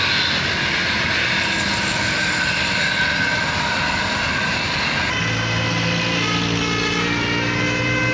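Large tour bus passing close on a steep uphill road: engine and road noise for the first few seconds, then from about five seconds in a steady set of held tones over the engine.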